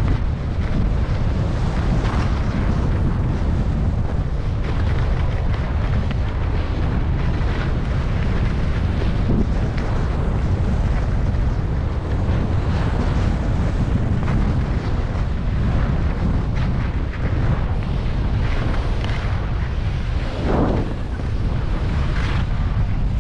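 Wind buffeting an action camera's microphone as a skier goes downhill at speed, a steady low rumble, with the hiss and scrape of skis on packed snow.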